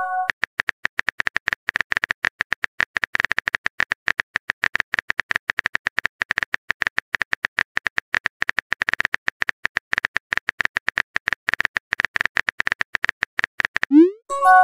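Rapid clicks of a phone keyboard typing sound effect, one click per keystroke. Near the end a quick rising swoop and a short multi-note chime mark the message being sent.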